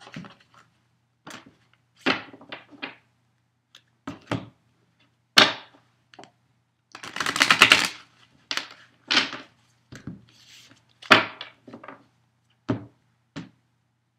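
A deck of tarot cards being shuffled by hand: a string of separate slaps and taps, with a longer run of rapid fluttering cards about seven seconds in.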